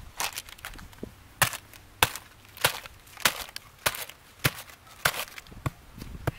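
A claw hammer strikes a crumbled energy bar and its plastic wrapper on grassy ground. There are about ten sharp blows at a steady pace, a little under two a second.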